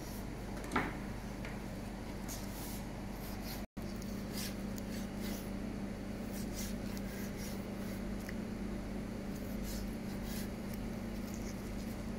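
A knife slicing raw wild boar meat on a cutting board: faint scrapes and soft taps, with one sharper click about a second in, over a steady low room hum.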